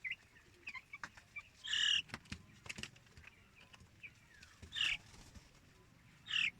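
Young broiler chickens peeping, with three louder high peeps about two, five and six and a half seconds in among fainter chirps.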